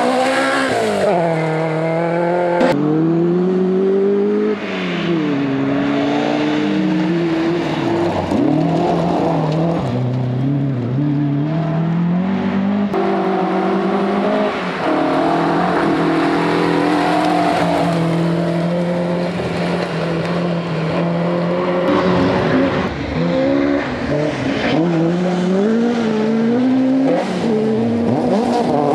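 Ford Escort Mk1 rally car's four-cylinder engine driven hard on gravel, its note climbing and dropping again and again with throttle and gear changes. The sound breaks off abruptly a few times as one pass cuts to the next.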